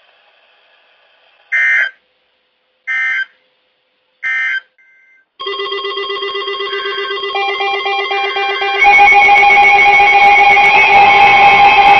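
NOAA Weather Radio SAME alert header: three short bursts of warbling data tones. From about five seconds in, the 1050 Hz warning alarm tone sounds together with the alarms of several weather alert radios, with a pulsing beep among them. The alarms grow louder about nine seconds in. This signals a new warning being broadcast.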